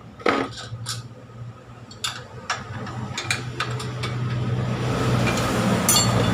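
Metal hand tools clinking as a socket wrench tightens exhaust header nuts, with several irregular sharp clinks in the first four seconds. A steady low hum grows louder in the second half.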